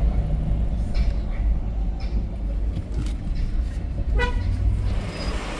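Steady low rumble of engine and road noise inside a car moving slowly in city traffic. A short car-horn beep sounds about four seconds in.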